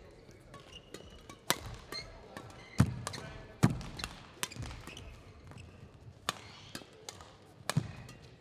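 Badminton rally: rackets smacking the shuttlecock back and forth, a sharp crack about once a second, with players' footfalls and a brief shoe squeak on the court, each hit ringing briefly in the hall.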